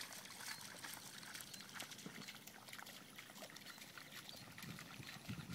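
Faint light splashing of shallow muddy water as dogs wade and lie in it, mixed with a dog's panting.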